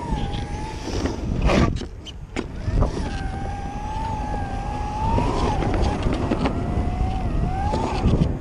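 Electric skateboard with a single 6374 motor riding over concrete: wheels rumbling on the surface under a thin motor whine that wavers and rises with speed. A few sharp knocks, the loudest about a second and a half in and near three seconds, as the wheels hit joints in the concrete.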